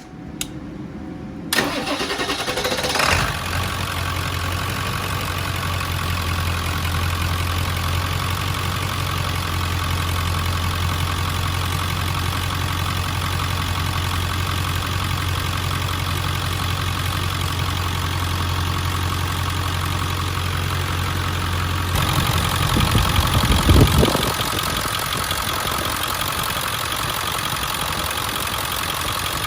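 A 7.3 Powerstroke V8 turbo diesel cranked by the starter for about a second and a half, catching and settling into a steady idle, freshly filled with oil on its first run. Near the end the sound briefly grows louder with a short rising sweep, then steady idling resumes.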